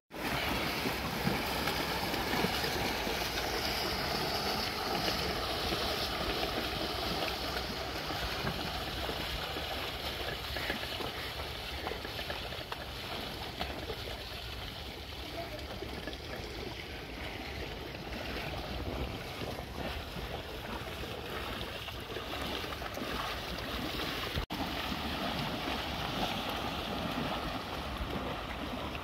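Steady rushing noise of wind and moving water as a herd of water buffalo and cattle wades through a shallow river, with a brief break about twenty-four seconds in.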